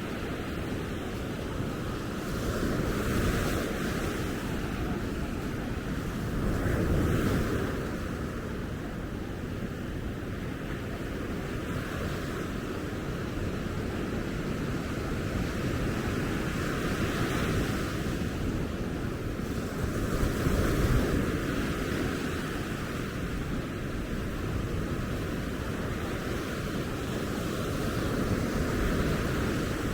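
Ocean surf breaking on a beach: a continuous wash that swells louder several times as waves come in.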